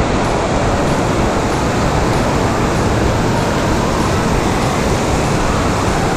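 Loud, steady rushing noise with no distinct events or pitch, unchanged throughout.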